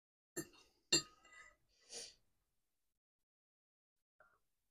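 Metal fork clinking twice against a ceramic plate, about half a second apart, each clink ringing briefly, as the last peas are scraped up. A short soft hiss follows about two seconds in.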